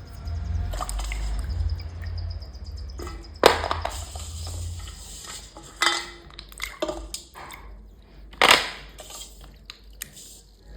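Miniature kitchen items being washed: water with scattered clinks and knocks of small hard pieces, two sharp clacks the loudest, about three and a half and eight and a half seconds in.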